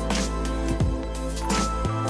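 Background music with a steady beat over sustained bass notes.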